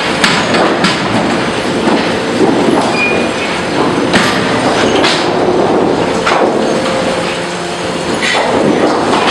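Lumber sorting and stacking line running: a steady mechanical clatter of conveyors, with frequent sharp knocks of boards.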